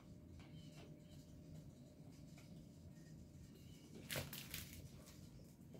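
Quiet handling sounds from fitting a plastic office-chair armrest by hand: faint scattered clicks over low room hum, with a brief cluster of sharp clicks and rustles about four seconds in.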